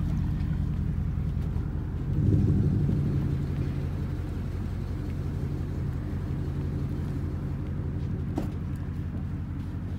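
Pickup truck engine running at low revs, a steady low rumble that swells briefly about two seconds in and then slowly fades, with a single light knock near the end.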